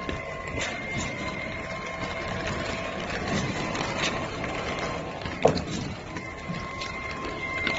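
Steady outdoor background noise with a faint steady whine, and one sharp click about five and a half seconds in.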